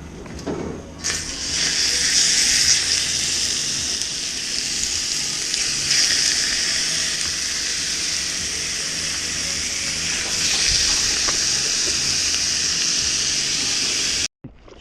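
Food frying in hot oil: a loud, steady sizzle that starts abruptly about a second in and cuts off suddenly just before the end.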